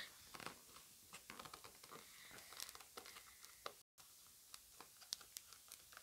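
Faint crinkling and clicking of a toy's plastic blister pack and card backing being handled and picked at while its flap is still held shut with tape.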